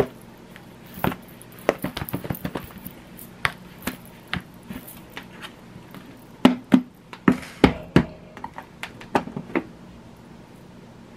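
Four chicken drumsticks knocking against the sides of a lidded plastic breader shaker bowl as it is shaken by hand to coat them in breading. The knocks come in irregular bunches, loudest a little past the middle, and stop about ten seconds in when the bowl is set down.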